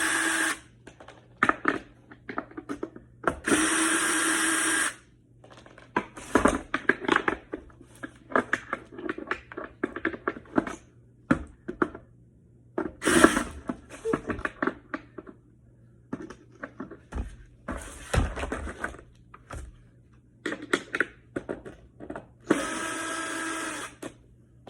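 Cordless drill running in several short bursts, backing out skateboard truck mounting bolts, with clicks and clinks of the hardware and tools being handled between the bursts.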